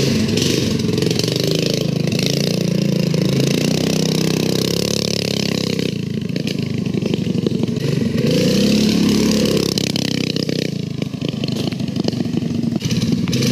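Mini bike's Predator 212cc single-cylinder four-stroke engine running and revving up and down as it pulls away through its torque converter, over a steady hiss of heavy rain.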